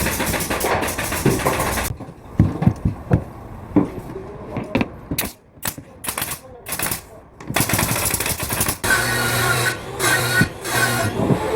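Work noise from carpentry tools: a run of sharp, irregular knocks and clicks, then steadier machine noise with a low hum near the end.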